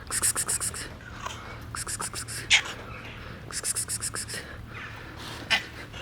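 Domestic cat coughing in three bouts of quick, hissing coughs, about ten a second, with a single sharper sound after the second and third bouts.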